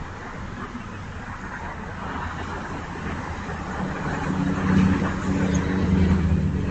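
Cars passing along a residential street, with a steady hiss of tyres on the road. In the second half a pickup truck's engine hum grows louder as it drives past.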